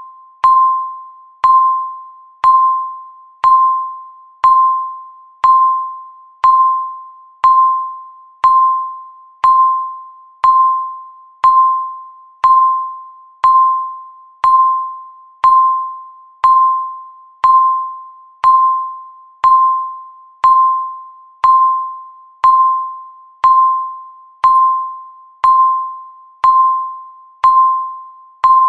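Countdown timer's tick sound: a short, ringing electronic ping, high and single-toned, repeating steadily once a second, each ping fading away before the next.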